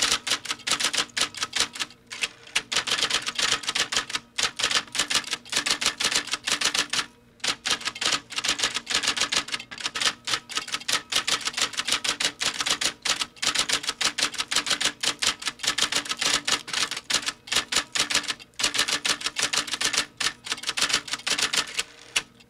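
Typewriter sound effect: a rapid run of keystroke clicks, several a second, broken by a few brief pauses.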